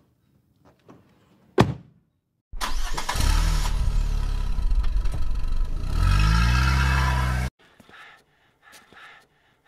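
A sharp click, then an engine starts suddenly and runs loud, rising in pitch about six seconds in as it revs, before cutting off abruptly.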